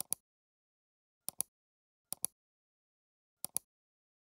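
Computer mouse clicks: four quick pairs of sharp clicks spaced about a second apart, with silence in between.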